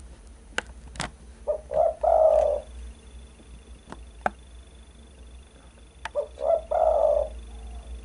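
Spotted dove (derkuku) cooing twice, about four seconds apart; each phrase is a couple of short notes running into a longer coo.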